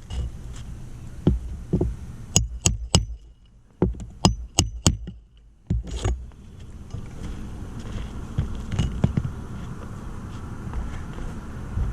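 A string of sharp metallic clicks and clinks over the first six seconds, then a steady low rumble with a haze.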